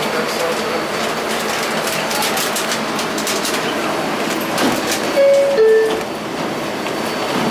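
Steady noise of an R142A subway car standing at a platform, with a few clicks, then the car's two-note descending door chime about five seconds in, the signal that the doors are about to close.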